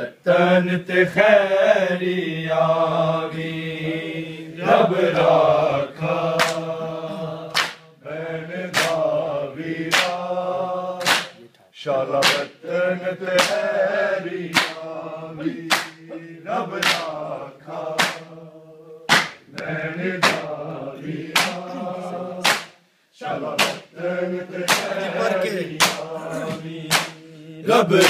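A group of men chanting a mourning lament (noha) in unison, with sharp hand slaps of chest-beating (matam) keeping a steady beat about once a second from a few seconds in.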